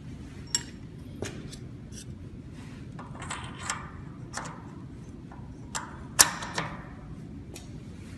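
A steel collet with its workpiece is slid by hand into a lathe spindle's collet closer: a series of metallic clicks and light scraping, with the sharpest clack about two-thirds of the way through, over a steady low hum.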